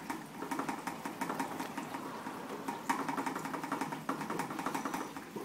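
Chilled wort running from a hose into a glass carboy full of Star San sanitizer foam, gurgling and sputtering in a fast, even patter of about ten pulses a second. The splashing aerates the wort for the yeast.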